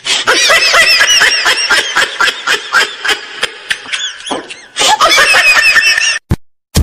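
High-pitched laughter in rapid, repeated bursts, cutting off about six seconds in.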